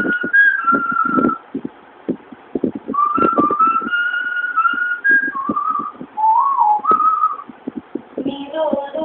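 A woman whistling a tune by mouth, in two phrases with a short break between them; the second phrase drops to lower notes and makes a quick up-and-down glide. Short percussive taps sound underneath.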